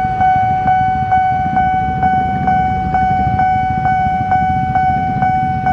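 Railway level-crossing warning bell ringing, a steady tone struck evenly about twice a second, over a low traffic rumble.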